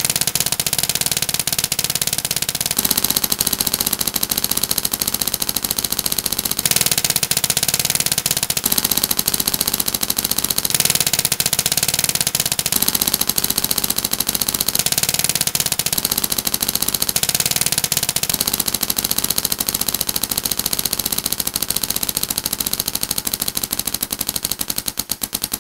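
Planet Eclipse Etek3 and Geo paintball markers firing in fast, continuous strings, many shots a second. The tone of the shots changes every two to four seconds, as the firing switches back and forth between the two markers.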